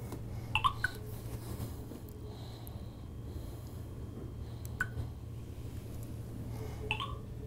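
Short electronic beeps from a StructureScan Mini (SIR-EZ) hand-held concrete-scanning radar as a scan line is started and run: two quick beeps about half a second in, another near the middle and one near the end, over a low steady hum.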